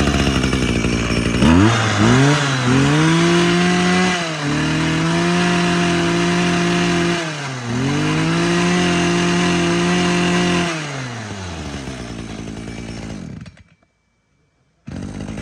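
Maruyama MB3231 23cc two-stroke brush cutter engine running and revved up twice, held at high throttle each time, then dropped back to idle. It stops about two seconds before the end, and after a moment of silence a running sound starts again.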